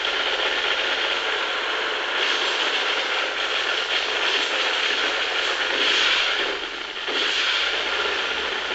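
Sustained rapid-fire minigun burst, a dense continuous rattle of shots that dips briefly about two-thirds of the way through.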